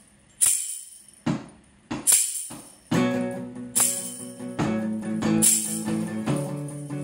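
Acoustic guitar and a hand tambourine playing a song's instrumental intro. The tambourine gives a bright jingling shake about every second and a half, and strummed guitar chords come in about three seconds in, changing chord twice.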